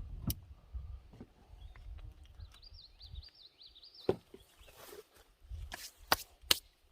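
A few sharp clicks and knocks from handling a cap-and-ball revolver and its loading gear. Low wind rumble on the microphone at first, and a bird's brief warbling song in the background about two and a half seconds in.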